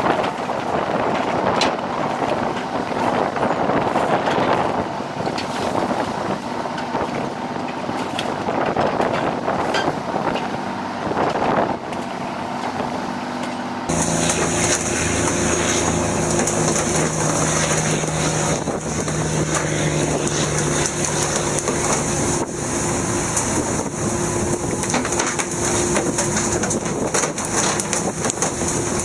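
Fishing boat at sea: rushing wind and water noise, then, after an abrupt change about halfway through, a steady engine hum with a constant high hiss.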